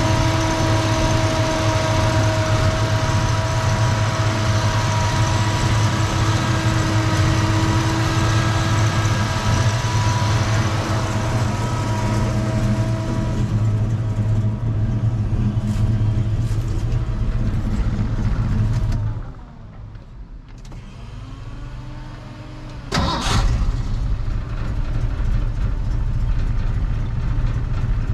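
A turbocharged Ford 302 V8 idles, with a few steady whining tones that fade out about halfway. About two-thirds through the engine stops and goes much quieter for a few seconds. It is then cranked, catches and idles again.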